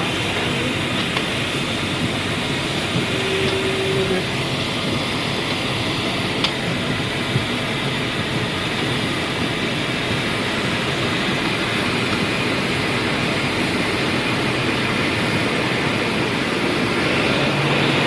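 Steady rushing noise inside an airliner's cockpit, engine and air noise running evenly.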